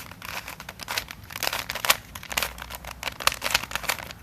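Plastic Fisher cube (a shape-modded Rubik's cube) being turned quickly through an algorithm. Its layers give a rapid, irregular run of plastic clicks and clacks.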